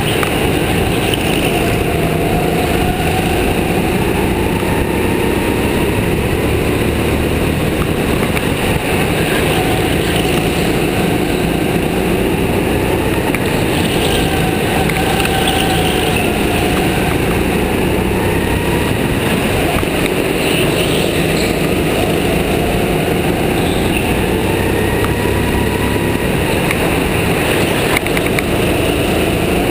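Go-kart engine heard from the driver's seat, running continuously with its pitch rising and falling over and over as the kart accelerates along the straights and lifts for the corners.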